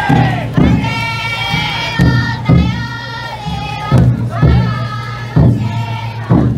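Many men singing together in a loud group chant while a big taiko drum is struck at uneven intervals, often in pairs about half a second apart. This is the carrying song of a futon daiko festival float.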